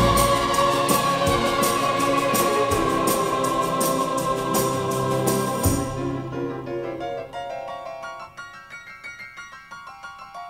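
Background music: a full arrangement with a steady beat that drops away about six seconds in, leaving quieter, sparse keyboard notes.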